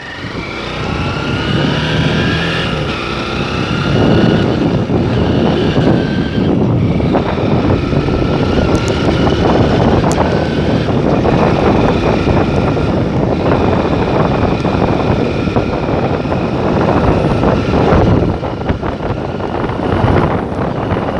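Motor vehicle engine running on the move, with steady road and wind noise. The engine pitch rises in the first few seconds as it picks up speed.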